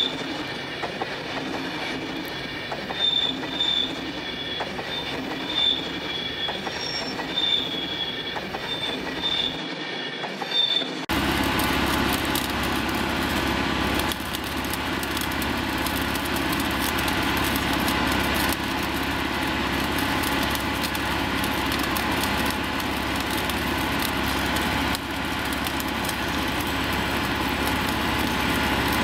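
For about the first eleven seconds, repeated short high-pitched squeals over a fainter running noise. Then the sound changes abruptly to the steady running of a Plasser & Theurer APT 1500 RA track-mounted mobile flash-butt rail welding machine at work, an even, dense machine noise.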